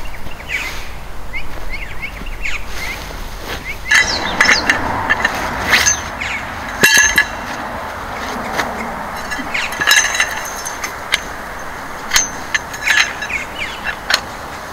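Birds calling with short, quick chirps in scattered clusters, with a sharp clink about halfway through and a steady background rush.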